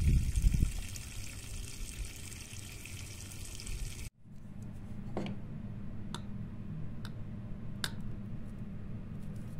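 Water dripping from the end of a homemade PVC drip-irrigation pipe into soil, over an even outdoor hiss. About four seconds in the sound cuts to a quieter steady low hum, with a few faint clicks from a PVC pipe being handled.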